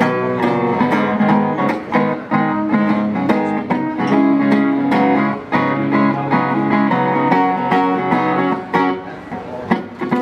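Guitar strummed in a steady rhythm, playing chords with no singing.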